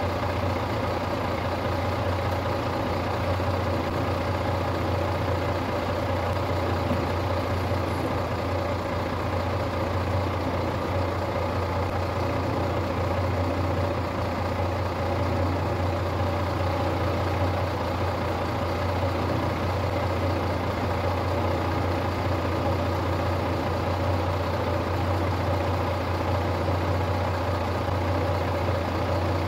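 Star 200 truck's six-cylinder diesel engine idling steadily while still warming up after a frosty-morning cold start.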